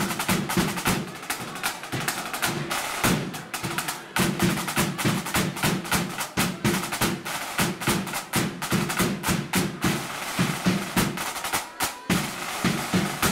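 A marching flute band's line of snare drums, backed by a bass drum, playing a fast, dense drum introduction together, with rolls; the drumming breaks off at the very end.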